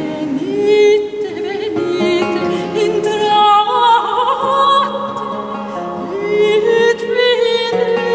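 Soprano singing a melody with vibrato in an operatic early-music style, accompanied by a bowed viola da gamba holding low notes and a plucked lute.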